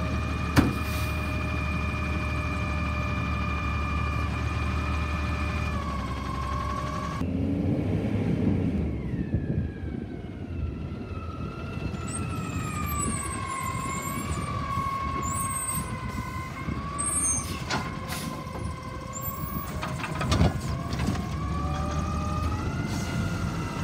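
Autocar Xpeditor garbage truck with a McNeilus Autoreach automated side-loader arm. The engine runs with a steady hydraulic whine. After a cut about seven seconds in, the whine wavers up and down as the arm grabs and lifts a cart, with a few sharp knocks and clanks from the arm and cart.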